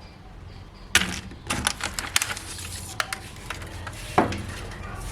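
Small plastic toy pieces being handled, giving a scatter of sharp clicks and knocks from about one second in, the loudest at about one second and again at about four seconds.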